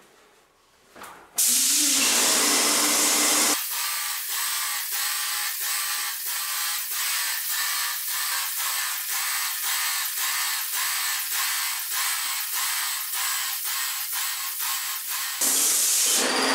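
Wagner Control Pro 250M airless paint sprayer spraying paint from its extension wand: a loud hiss starts about a second in, lasts about two seconds, cuts off suddenly and returns near the end. In between comes a steady, even pulsing of about two to three beats a second.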